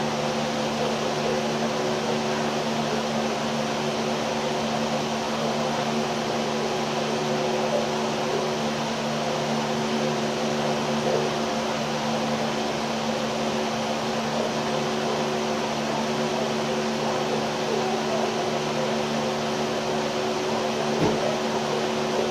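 Steady mechanical hum and whir of a running motor, with several fixed tones, unchanging throughout. There is one soft thump near the end.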